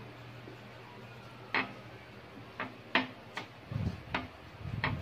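Close-up eating and handling sounds while a boiled banana is peeled and dipped into a bowl of fish-paste sauce: about five sharp clicks and taps spread over a couple of seconds, then low muffled rustling near the end.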